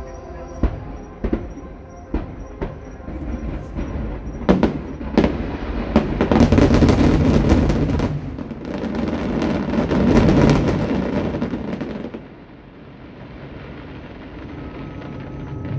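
Aerial fireworks going off: several separate bangs in the first five seconds, then two long stretches of dense crackling and rumbling, about six to eight and nine to eleven seconds in, that die away about twelve seconds in.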